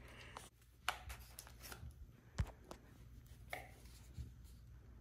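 A few scattered light knocks and clicks over a faint low hum, the loudest about two and a half seconds in.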